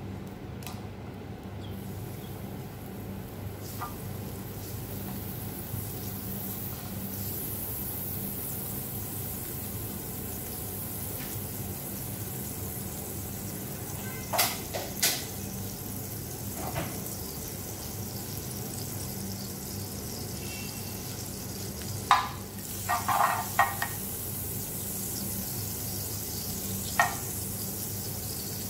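Solid cooking fat melting and sizzling in a hot pan, the sizzle building up a few seconds in and then holding steady. A few sharp clicks cut through it: two near the middle, a quick cluster later and one near the end.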